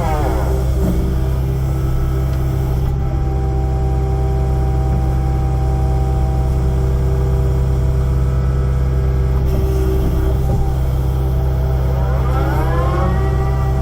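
Kubota excavator's diesel engine running steadily under work. Its hydraulic whine rises and falls in pitch near the start and again near the end.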